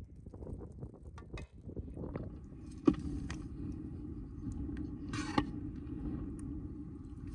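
Handling sounds of a roasted whole lamb being stuffed with rice pilaf: a hand and a metal spoon pressing rice into the cavity, with a sharp click about three seconds in and another after about five seconds. A faint steady hum sits underneath from about three seconds on.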